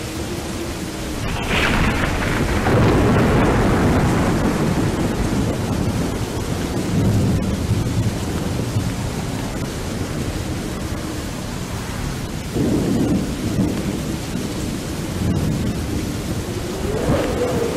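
Dark ambient track built on steady rain with rolling thunder: a thunder rumble swells about two seconds in, with further rumbles later on and near the end, over a faint held drone tone.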